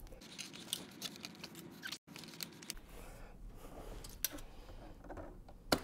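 Nylon zip ties being worked tight around a fuel-tank vent hose: faint scattered plastic clicks and rustling, with one sharp click near the end.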